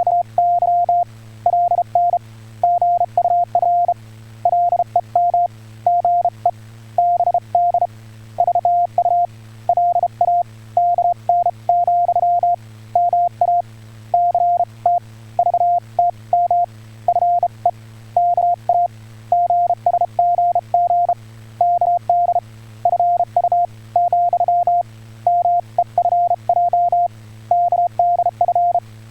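Amateur-radio Morse code (CW) being sent: a single steady-pitched tone keyed on and off in short and long beeps, dots and dashes, over a steady low hum.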